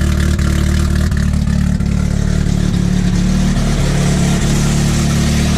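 Car engine running loud at steady, nearly constant revs.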